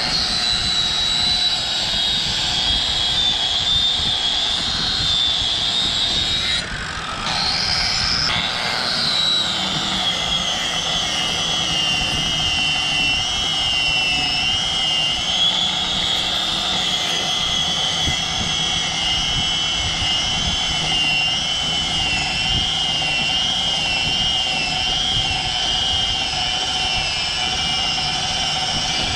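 Electric angle grinder with a tire-shaving disc cutting into the rubber tread lugs of a tractor tire, shaving them down for tractor pulling. A loud, continuous high whine that briefly dips about seven seconds in, then runs at a lower, wavering pitch.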